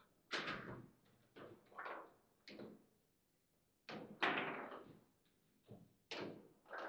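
Foosball table in play: a run of sharp, irregular knocks and slams from the ball, the plastic figures and the rods. The two loudest come about half a second in and about four seconds in.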